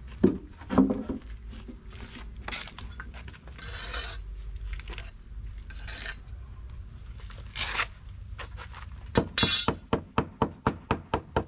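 Hammer striking a steel wedge or flat bar to pry a composite mould panel off a cast concrete planter during demoulding: two heavy knocks near the start, scattered clicks and two short noisy rasps, then a fast run of sharp metal taps, about four a second, from about nine seconds in.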